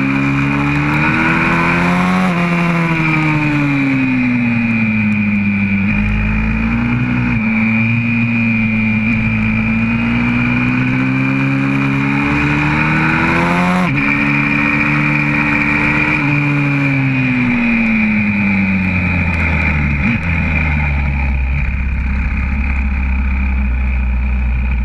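YCF 125cc four-stroke pit bike engine heard close from an onboard camera, revving up and down through the corners, with wind rushing over the microphone. About fourteen seconds in the pitch drops sharply, a gear change, and over the last few seconds the engine falls to low, steady revs as the bike slows.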